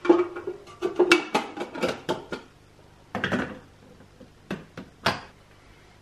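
Hard plastic clicks and clattering knocks as the parts of a Nespresso Vertuo Next coffee machine are handled: a quick run of clacks in the first two seconds, a short scrape about three seconds in, then a few single clicks.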